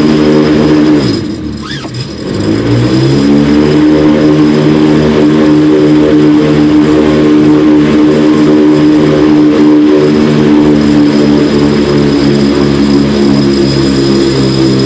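MWfly aircraft engine running steadily at around 4,400 rpm. About a second in its speed drops sharply, then climbs back within about a second.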